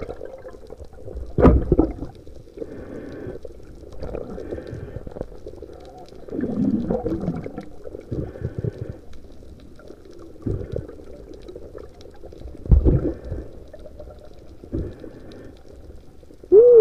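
Muffled underwater sounds picked up by a submerged action camera: water moving and gurgling in irregular swells, with two dull knocks, one about a second and a half in and one near thirteen seconds. A quick run of falling pulses comes at the very end.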